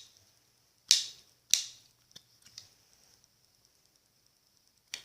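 Sharp clicks of a small plastic toy piece being worked by hand: two loud clicks about a second in, a few faint ticks after, and one more click near the end.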